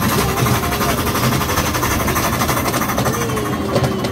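Ride-on miniature railway train running along its track, heard from a carriage, with a steady, fast, even rattle.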